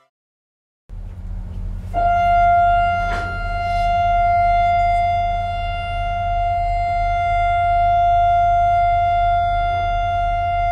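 Hospital boat's horn blowing one long, steady blast that starts about two seconds in, over a low steady rumble.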